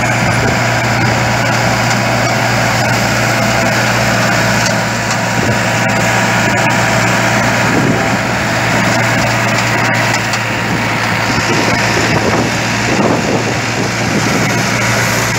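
Massey Ferguson 385 tractor's diesel engine running steadily under load, driving a tractor-drawn wheat-straw machine that chops the stubble into bhusa and blows it into the trailing trolley. The sound is a steady machine drone with a constant low hum.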